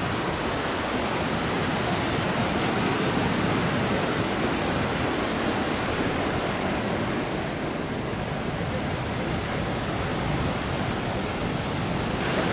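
Ocean surf: rows of waves breaking and washing in, a steady rushing noise.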